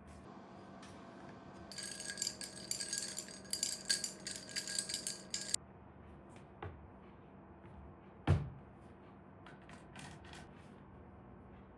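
A dense run of light clicking and rattling from small hard objects for about four seconds, then scattered single clicks and one dull thump.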